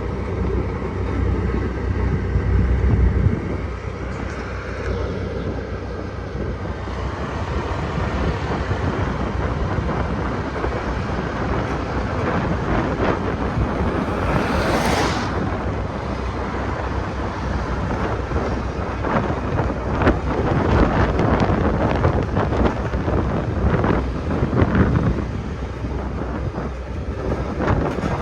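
Road roller's diesel engine running steadily, with wind buffeting the microphone. About halfway through a short hiss swells and fades, and rattling knocks come and go in the second half.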